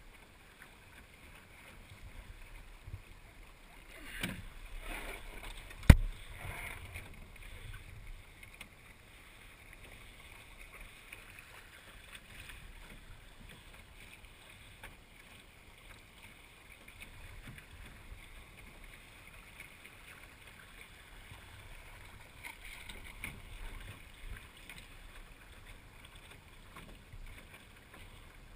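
Water washing and lapping against the hull of a small sailing dinghy under way, rising in short swells. A single sharp knock about six seconds in is the loudest sound.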